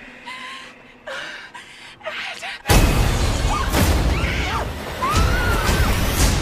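Trailer sound design: a few short, breathy hits in the first couple of seconds, then a sudden loud boom nearly three seconds in that opens into a loud, sustained rush of noise with pitched cries arching over it.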